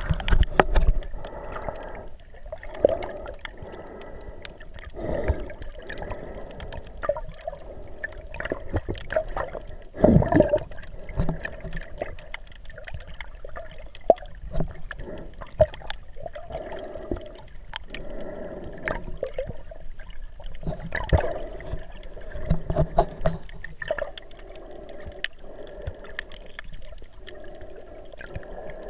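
Muffled underwater sound picked up through a GoPro Hero 3's waterproof housing while snorkeling: water sloshing and gurgling around the camera, with irregular louder surges every few seconds. A faint steady high whine runs underneath.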